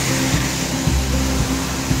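Background music with a bass line stepping between notes, over the steady hiss of a heavy tropical downpour.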